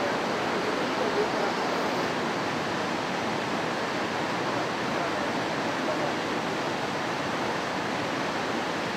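Steady rush of flowing water, an even noise with no breaks.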